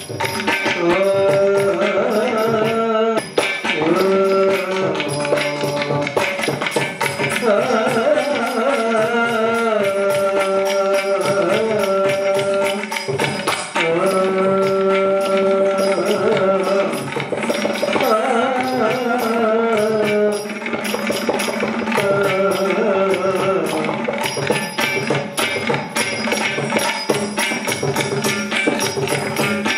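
Ottanthullal music: a voice singing verses in long, bending phrases over steady drum strokes and small cymbals keeping time.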